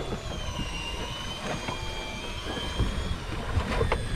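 Steady low rumble of wind and choppy water around a small fishing boat on rough sea, with a faint thin whine running through it and a few short knocks near the end.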